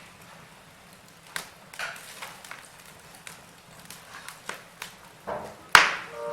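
Wood fire burning in a fireplace, with logs crackling in scattered, irregular pops over a low hiss and one louder pop near the end.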